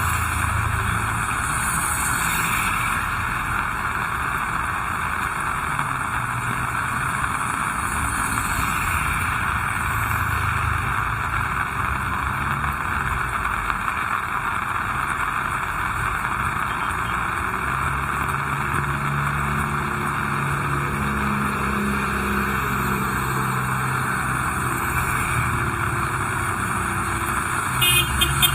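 Heavy rain falling steadily, with motor traffic on the wet road; a vehicle engine hum grows clearer in the second half. A few quick clicks near the end.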